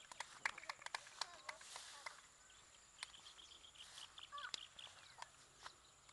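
Faint birdsong: quick runs of short high chirps, strongest from about three seconds in, with a few short gliding calls and scattered light clicks and taps.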